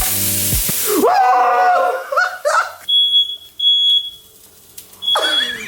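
Steak sizzling in a frying pan, then voices crying out, and about three seconds in a smoke alarm starts sounding a high, steady beep in repeated stretches, set off by smoke from the frying steak.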